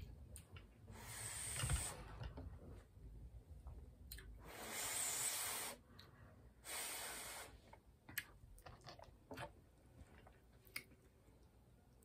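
A person blowing on a forkful of hot, spicy ramen noodles to cool them: three breathy hisses, the middle one the longest. A few light clicks follow in the second half.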